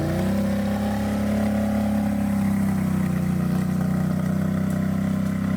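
Can-Am Renegade XMR 1000R ATV's V-twin engine with an aftermarket exhaust, held at a steady high rev after just having climbed, a constant loud drone.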